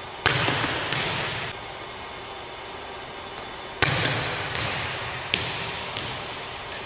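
A volleyball smacking and bouncing in a hardwood-floored gymnasium: two sharp smacks near the start, then a louder one a little past halfway followed by three lighter ones, each ringing on in the hall's echo.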